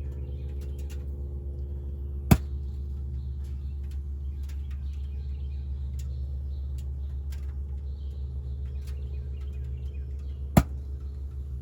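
Ford Transit engine idling steadily, with two sharp pops about eight seconds apart: the popping noise the van is making.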